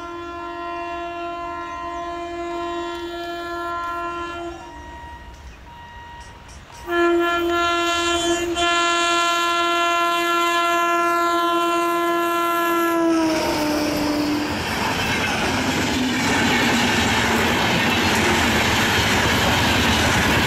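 Horn of a WAG-7 electric locomotive hauling an express train. It sounds one long steady blast, then, after a short break, a louder one about seven seconds in that drops in pitch as the locomotive passes. The coaches then rush by with wheels clattering over the rail joints.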